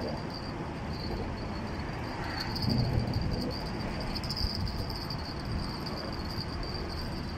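A steady high-pitched insect trill over a low background rumble, with a brief louder low rumble about three seconds in.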